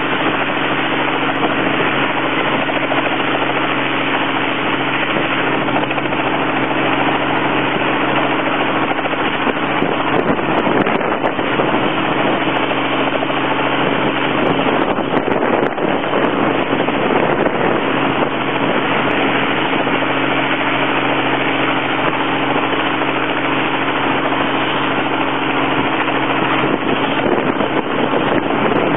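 Helicopter running with a steady drone and hum, which turns rougher and noisier for several seconds in the middle.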